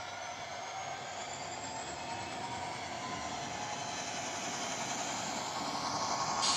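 A 00 gauge model diesel locomotive's DCC sound running, with a whine rising in pitch, growing steadily louder as the train comes toward the tunnel mouth.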